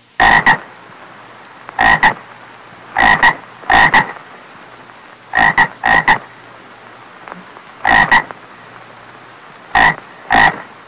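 Frog croaking: about a dozen short, loud croaks, mostly in quick pairs, repeating every second or two over a steady faint hiss.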